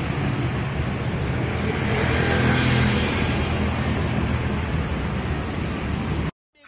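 A motor vehicle engine running steadily with a low hum, swelling about two to three seconds in, then cutting off suddenly near the end.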